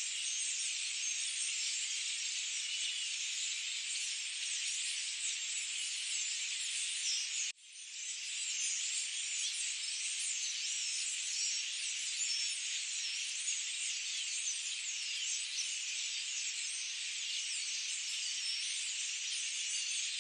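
Forest ambience: a dense, steady, high-pitched chorus full of small chirps. It cuts out abruptly for a split second about seven and a half seconds in, then swells back.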